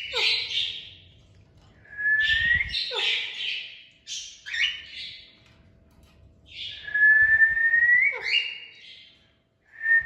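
Pet parrot whistling and calling in about four bursts: rising whistles mixed with quick downward-sweeping chirps and raspy calls.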